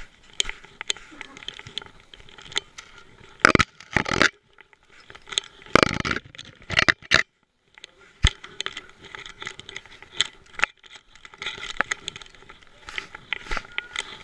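Rubbing, scraping and clicking of a camera strapped to a moving dog's neck, with several loud close bursts of noise about a third and halfway through and a moment of silence just after.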